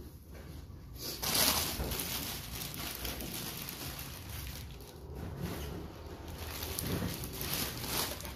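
Inflated latex balloons rustling, rubbing and bumping against one another as a small child wades through and sits down in a pile of them. It starts about a second in and carries on as a continuous scratchy rustle.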